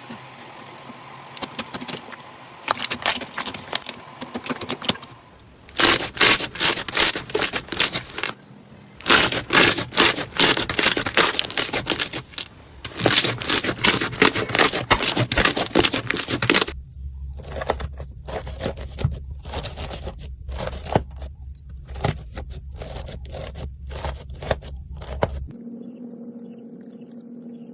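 Slime being squeezed, poked and stretched by hand, giving dense runs of sharp crackles and pops. After a cut the crackling thins out to scattered clicks over a low hum.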